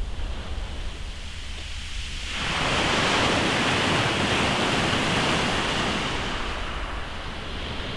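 Sea surf swelling up into a broad hiss about two seconds in and slowly easing off, over a steady low rumble of wind on the microphone.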